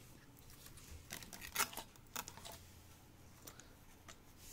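Faint handling clicks and rustles at a workbench, a short cluster of them from about one to two and a half seconds in, then two single ticks near the end, over a faint steady low hum.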